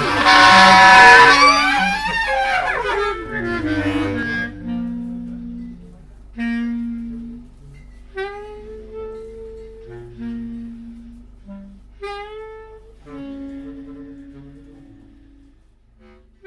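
Three bass clarinets playing: a loud, dense chord for about the first two seconds, then held low notes under shorter higher notes that bend in pitch, growing gradually quieter until the music stops near the end.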